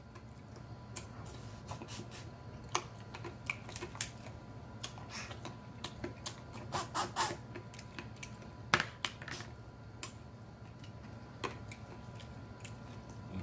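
Close-miked eating sounds: chewing and mouth smacks with a scattered run of small clicks and sharper snaps, the sharpest about nine seconds in, over a low steady hum.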